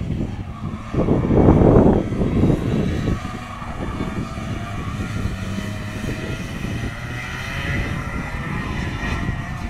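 Distant 125 cc two-stroke kart engines buzzing around the circuit, their pitch drifting up and down as the karts accelerate and slow for the corners. A loud burst of low rumble comes about a second in.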